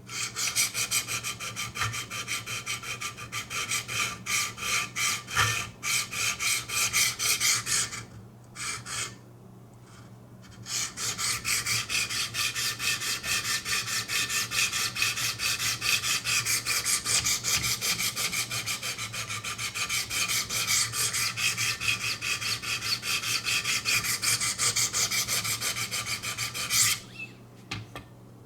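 Diamond sharpening stone scraping back and forth along a VG-10 steel knife blade in quick, rhythmic strokes, a gritty rasp. It is grinding the bevel to raise a burr along the whole edge. It pauses about a third of the way in and stops shortly before the end.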